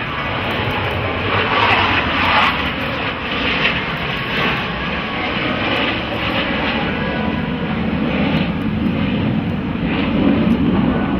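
Jet noise from a pair of Blue Angels F/A-18 Hornets passing together, from their twin turbofan engines. It is a steady rushing sound that swells about two seconds in, with a deeper rumble building near the end.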